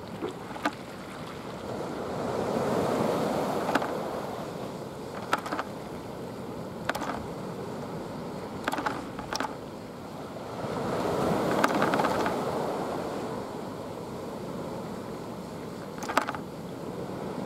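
Sea waves washing against the foot of a seawall, swelling louder twice, with several short sharp clicks scattered through.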